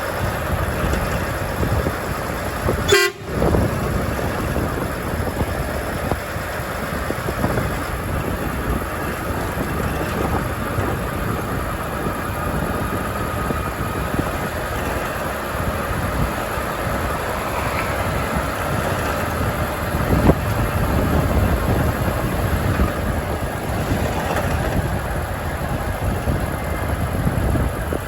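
Truck driving on the highway: steady engine and road noise at an even level, with a brief sharp dropout about three seconds in.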